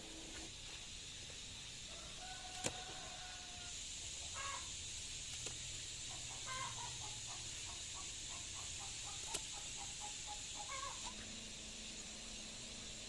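Chicken clucking: a drawn-out call about two seconds in, then a run of about a dozen quick clucks, over a steady high hiss. Two sharp clicks stand out, the loudest near the start of the drawn-out call.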